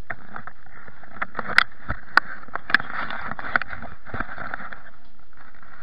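Close rustling of leafy branches with four sharp twig snaps in the middle, as the person sitting in the tree shifts among the branches next to the camera.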